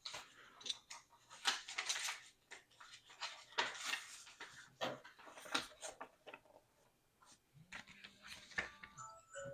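Small plastic Lego pieces being handled: a run of short clicks and rustles as bricks are picked out and pressed together. A brief faint whine-like tone comes near the end.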